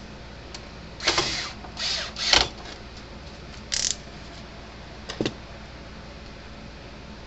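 Hands working on a fence charger's internals: a few short scrapes and rustles, then a quick double click, over a steady low hum.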